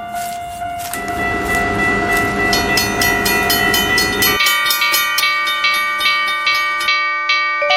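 Train sound effect: a held horn-like chord over the rumble of a passing train, which drops away about four seconds in. A steady run of clicks follows, about four a second, under held tones.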